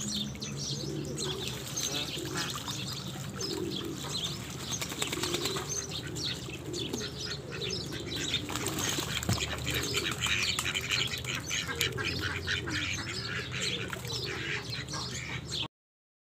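Bird sounds at a duck pond: pigeons cooing over and over, small birds chirping, and the splashing and wing-flapping of a female mallard bathing.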